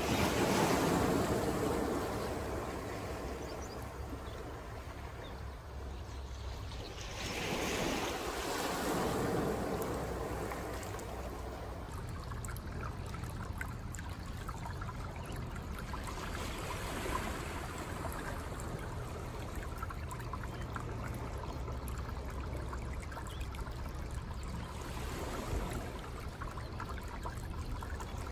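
Ocean surf breaking and washing ashore in three swells several seconds apart, the first the loudest. Wind buffets the microphone as a steady low rumble underneath.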